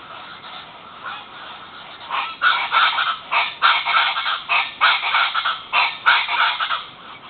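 A group of cracids (the family of guans and chachalacas) squawking: a fainter chatter at first, then from about two seconds in a run of about seven loud, harsh, pulsing calls, each under a second long.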